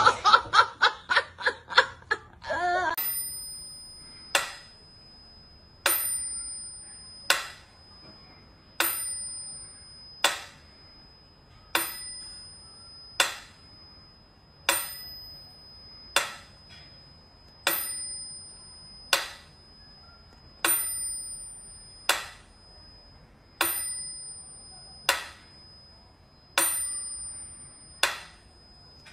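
Mechanical pyramid metronome ticking slowly, about one tick every one and a half seconds, its bell ringing on every second beat. A short run of quick clicks comes first.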